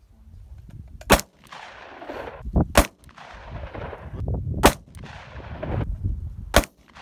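Four gunshots about two seconds apart, each sharp crack followed by a long rolling echo that fades before the next shot.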